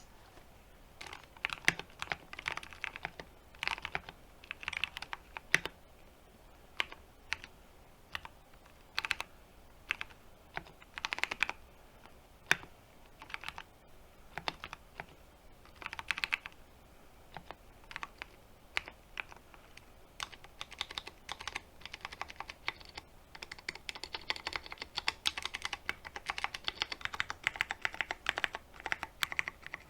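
Typing on a 60% mechanical keyboard with lubed Cherry MX Brown tactile switches in an aluminium case with PBT keycaps: irregular runs of key clicks and clacks, growing into fast continuous typing about two-thirds of the way through.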